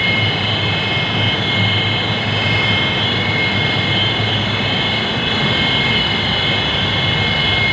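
Loud, steady machinery noise in a plant room: a constant low hum with several steady high whines over it, from the machines running there.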